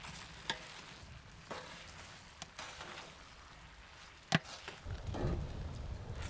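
A wooden spoon stirring strawberries and sugar in a black metal pan, with a few sharp knocks and clicks, the loudest about four seconds in. A louder low rushing noise comes in near the end.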